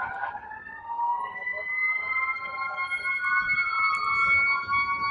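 Sirens of passing fire trucks, two or more wailing at once, their pitches slowly rising and falling across each other.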